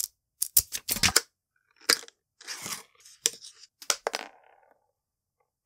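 Unboxing handling noise from a smartphone's paper leaflet and cardboard packaging: a run of sharp taps and clicks, a short papery rustle, then a few more taps.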